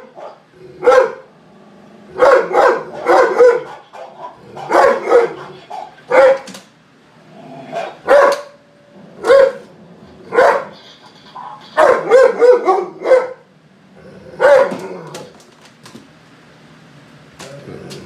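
German Shepherd barking loudly in repeated bursts, single barks and quick runs of two to four, falling quiet about fifteen seconds in.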